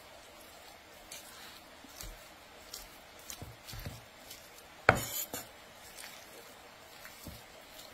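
A steel cleaver chopping cooked beef on a wooden cutting board: irregular knocks of the blade through the meat onto the board, the loudest about five seconds in.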